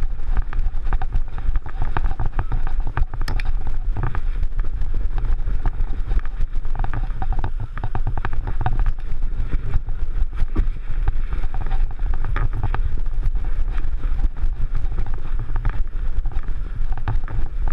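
Handling and wind noise on a camera strapped to a walking dog's harness: a steady low rumble with many irregular knocks and rubs as the camera jostles with each step.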